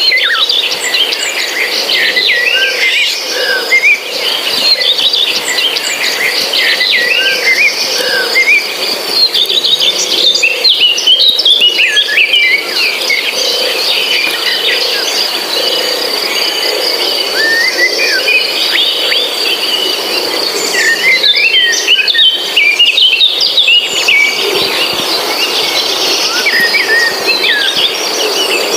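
Forest ambience of many birds chirping and singing in overlapping bursts over a steady, high-pitched insect drone.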